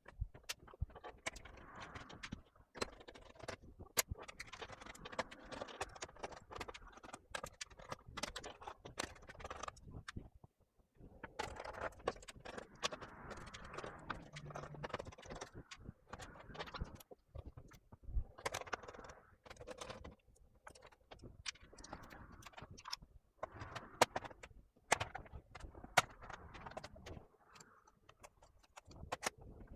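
Handling noise of a laptop being taken apart: many small sharp clicks, rattles and scrapes of plastic and metal as screws come out and the bottom cover is worked off, in irregular spells with short pauses.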